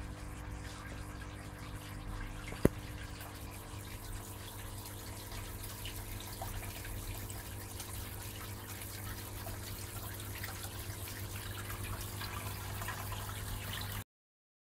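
Submerged aquarium filter pump running with a steady hum, its water trickling and splashing at the surface. One sharp click about two and a half seconds in.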